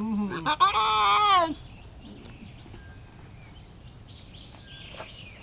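A lion cub's bleating mew: a short cry and then a longer one that rises and falls, over about a second and a half in. Faint rustling follows.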